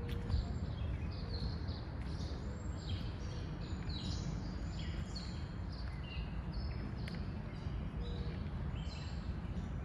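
Several songbirds chirping and singing in short, repeated high phrases, over a steady low outdoor rumble.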